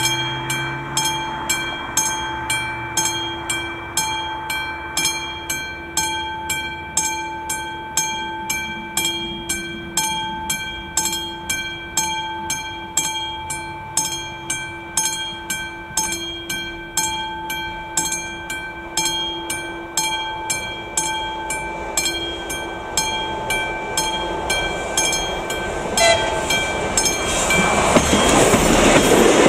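Level-crossing warning bell, a classic mechanical bell, striking in a steady rhythm of about three strokes every two seconds, each stroke ringing with several clear tones. Near the end a passenger railcar arrives at the crossing, and its rising running noise becomes louder than the bell.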